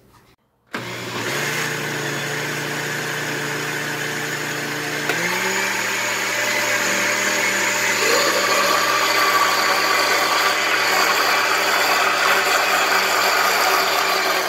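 Countertop blender motor starting about a second in and running steadily while it blends a thin semolina-and-flour batter. Its pitch steps up slightly about five seconds in.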